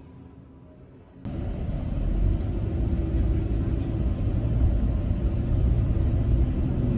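Steady low rumble of a car driving, heard from inside a taxi's cabin, starting suddenly about a second in.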